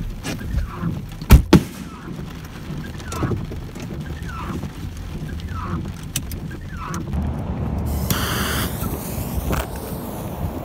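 Two sharp firecracker bangs in quick succession about a second in, heard from inside a car. A short loud hiss follows about eight seconds in.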